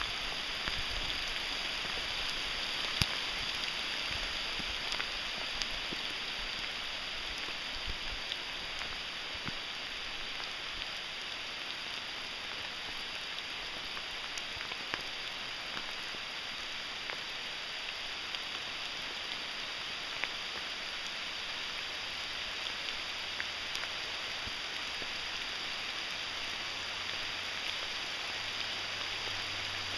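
Steady rain falling on forest foliage and the trail: an even hiss with scattered sharp ticks of single drops.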